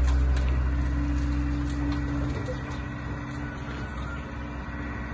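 Liebherr A312 wheeled excavator's diesel engine running steadily as the machine drives away, growing gradually fainter. A steady higher tone over the engine hum stops about two seconds in.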